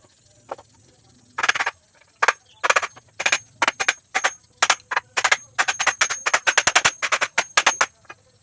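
Hammer blows in woodwork: a series of sharp knocks with a faint metallic ring. They start about a second and a half in, come irregularly, then quicken to a fast run of strikes before stopping near the end.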